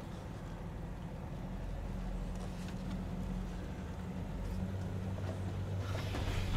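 Chevrolet Express high-top van's engine running low and steady as the van crawls down a steep slickrock slope, growing slowly louder as it comes closer.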